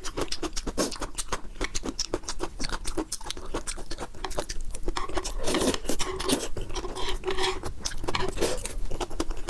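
Close-miked eating sounds: wet chewing and mouth noises, with many sharp clicks and scrapes from metal chopsticks on a wooden tray, busiest in the middle.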